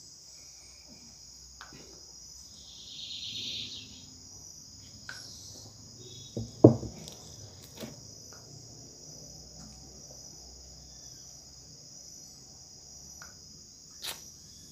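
Steady high-pitched chirring of crickets, with a short spray hiss of slime activator from a squeeze bottle about three seconds in and a sharp knock on the table a little after six seconds.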